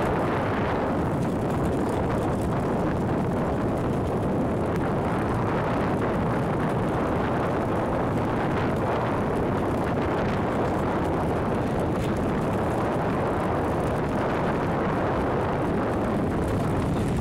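Erupting Anak Krakatau volcano rumbling: a steady, dense noise with no breaks.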